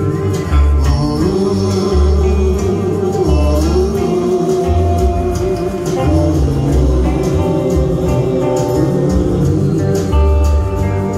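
Live band music played through the PA: a stretch between sung verses, with bass notes pulsing about once a second under a wavering melody line, from an ensemble of acoustic guitar, double bass, reeds and keyboard.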